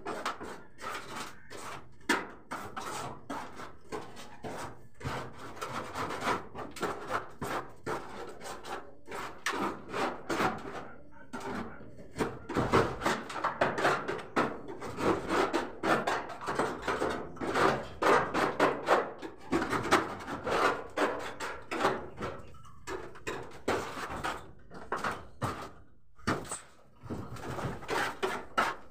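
Homemade hand scraper rasping across the loft floor in quick repeated strokes, scraping off dried pigeon droppings, with a few short pauses.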